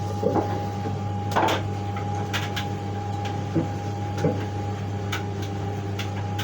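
Scattered knocks and clicks of a cupboard being opened and things being handled while a detergent bottle is fetched, over a steady low hum with a constant thin whine.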